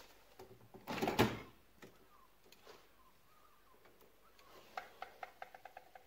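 A glass balcony door being handled: a clunk about a second in, then a run of quick clicks, about five a second, near the end as the lever handle is worked.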